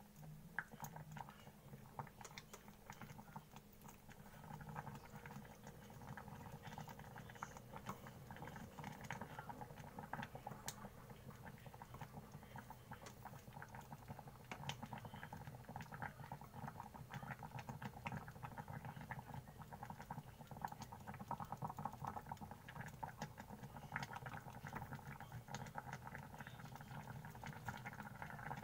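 Soy milk with oats and sweet potato slices simmering in a stainless steel saucepan: a steady patter of small bubbling pops, with wooden chopsticks now and then scraping and tapping in the pot. It gets a little louder about five seconds in.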